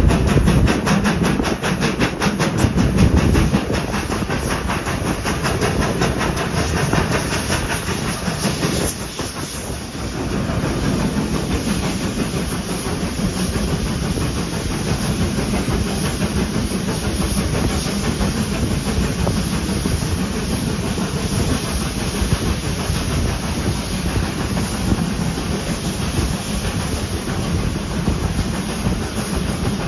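A steam train running, heard from a carriage behind the GWR Manor-class 4-6-0 Odney Manor: wheels clattering along the rails, with the locomotive's steam exhaust. The sound has a quick, even rhythm and dips briefly about nine seconds in.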